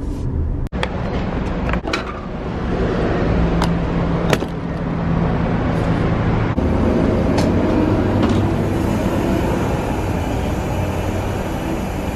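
Gas station forecourt noise while a car is being refuelled: a steady rushing sound from the pump and gasoline flowing through the nozzle, with scattered clicks and knocks from handling the nozzle and filler.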